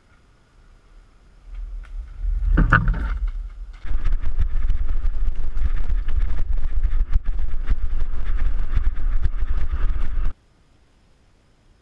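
A mountain bike comes up and passes close by on a dirt trail. Then comes the loud rumble of wind buffeting the microphone and the rattle of a bike-mounted camera riding fast down a rough trail, full of small knocks. It cuts off suddenly about ten seconds in.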